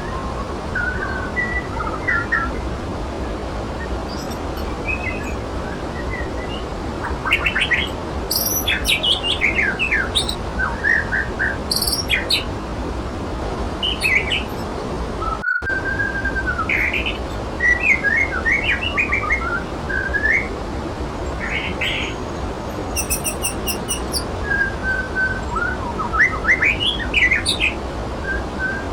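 Waterfall rushing steadily, with small songbirds chirping and whistling in short phrases over it. The sound cuts out for an instant about halfway through.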